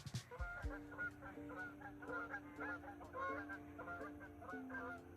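Geese honking, many short calls overlapping one another, over steady held notes that come in just under a second in. There are a couple of low thumps at the very start.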